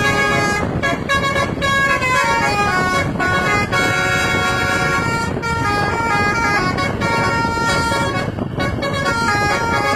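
Indonesian 'telolet' bus horn, several air horns driven by a DAV horn module, playing a melody: a run of steady notes that step from pitch to pitch with brief gaps.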